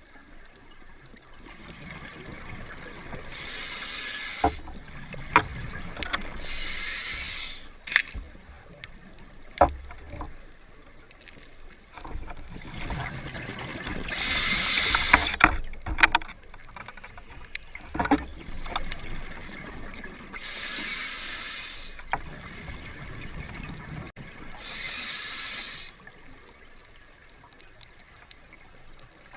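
Scuba diver breathing through a regulator underwater: exhaled bubbles rush out in hissing bursts every few seconds, with a few sharp clicks in between.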